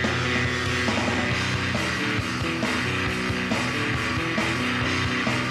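Rock music with a steady beat, playing as a soundtrack.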